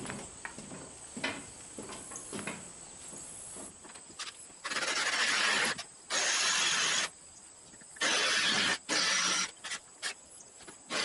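Footsteps up a ramp and across a wooden floor, then a power drill boring out the rivets on an overhead roll-up door's hinges, in four loud bursts of about a second each starting near the middle.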